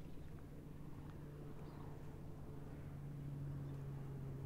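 Distant diesel-electric locomotive NSU 52 approaching: a steady low engine drone that grows slightly louder, with a few faint bird chirps over it.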